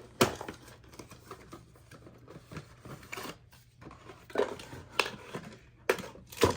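Gift packaging being handled and opened by hand: paper or plastic crinkling and tearing, with several sharp clicks and knocks, the loudest just after the start and a cluster near the end.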